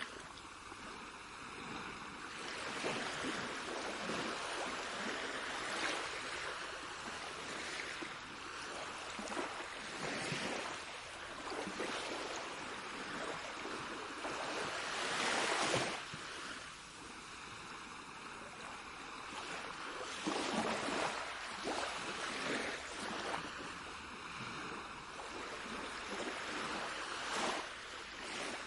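Sea waves washing in and drawing back, a steady rush of water that swells every few seconds, the biggest surge about halfway through.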